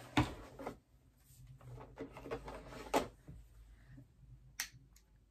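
Handling noise of a box and its contents being fetched and lifted out: three sharp knocks, about a second in, about three seconds in and near the end, with light rustling between them.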